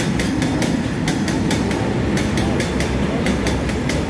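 Freight train of open box wagons passing through without stopping: a steady rumble of wagons with rapid, irregular clicks of wheels over rail joints.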